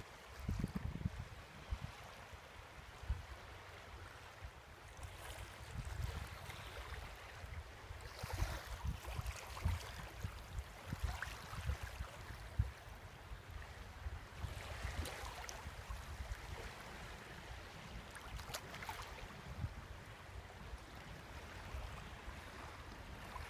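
Small sea waves washing onto a beach, a hiss that swells and fades every three or four seconds, with wind rumbling and buffeting on the microphone throughout.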